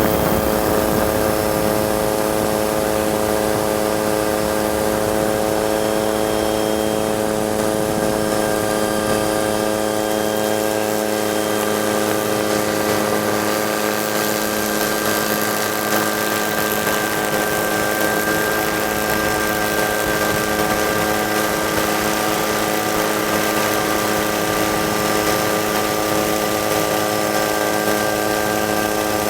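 Helicopter running steadily: a constant whine of several fixed tones over a rushing noise, never rising or falling.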